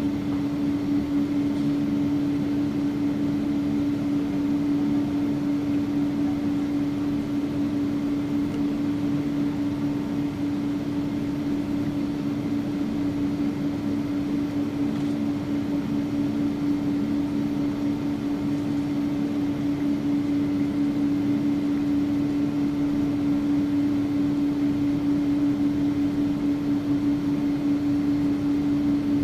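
Steady cabin drone inside a jet airliner: one unchanging hum-tone over an even rushing hiss from the engines and cabin air system.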